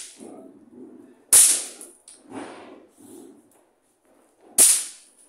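Two sharp cracks from a child's small toy firecrackers going off, about three seconds apart.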